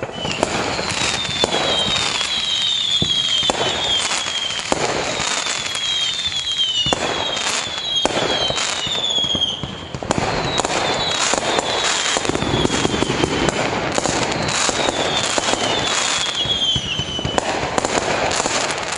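Fireworks display: a dense, continuous barrage of bangs and crackling from many shells bursting at once, with repeated high whistles that fall in pitch. The barrage thins briefly about ten seconds in, then picks up again.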